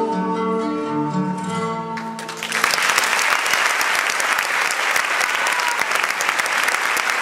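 The music ends on a held chord, and about two and a half seconds in, audience applause breaks out and carries on steadily.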